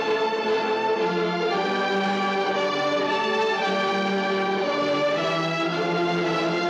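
Slow orchestral film score, held notes moving in a gentle melody that changes note about once a second.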